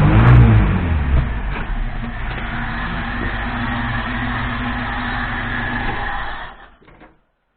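Moskvich 412's UZAM four-cylinder engine dropping from raised revs back to idle, then idling steadily. It stops near the end.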